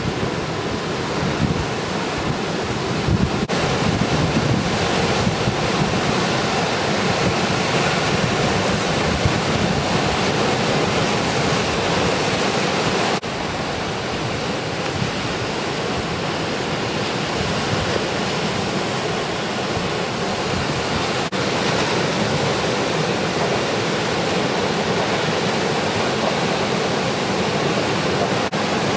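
Ocean surf breaking and washing in steadily, with wind buffeting the microphone.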